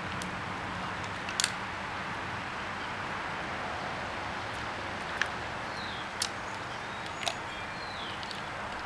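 Outdoor ambience: a steady background hiss with a few faint bird chirps and four sharp, separate clicks.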